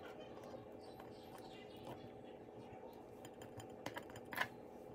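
Table knife spreading pâté onto a baguette: soft scraping and small clicks, with a sharper click about four and a half seconds in, over a faint steady hum.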